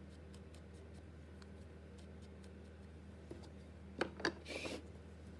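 Small paper and craft supplies handled on a tabletop: faint light ticks, then two sharp clicks about four seconds in, followed by a short scratchy rub, over a steady low hum.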